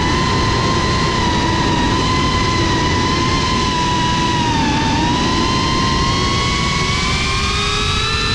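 GEPRC FPV quadcopter's motors and propellers whining steadily, with a rushing noise underneath. The pitch dips slightly about five seconds in, then climbs gradually toward the end as the drone rises.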